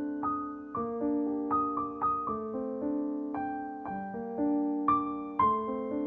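Background piano music: a melody of single struck notes over held chords.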